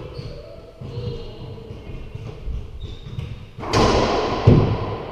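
Racquetball serve in an enclosed court. A few soft bounces of the ball on the floor, then near the end a sharp crack of racquet on ball that rings through the court, and under a second later a deep thud as the ball strikes the wall.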